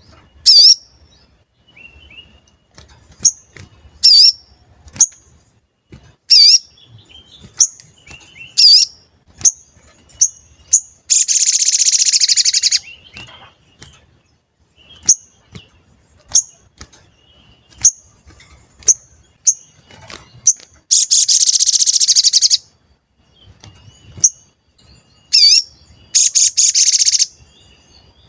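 A sogon songbird calling: scattered sharp, high 'cuit cuit' chirps, some swooping down and back up, broken three times by a loud rapid trill lasting a second or two.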